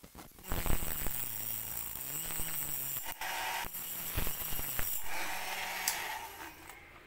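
Handheld rotary tool with a thin cutting disc cutting and grinding the tip of a steel nail, a gritty hiss of disc on metal over a motor hum that rises and falls with the load. It starts about half a second in, knocks sharply a couple of times, and dies away near the end.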